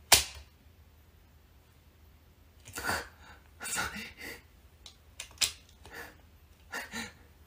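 A single sharp click as a power-strip switch is pressed, then several short breathy bursts of stifled laughter with a few faint clicks in between.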